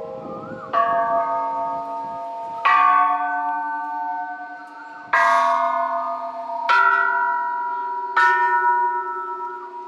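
Thai temple bells struck one after another by hand, five strikes about one and a half to two and a half seconds apart. Each bell rings on at its own pitch and overlaps the next.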